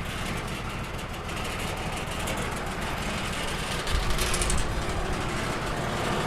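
Wood-Mizer LT35 portable band sawmill's engine running steadily, with a heavy low thump about four seconds in.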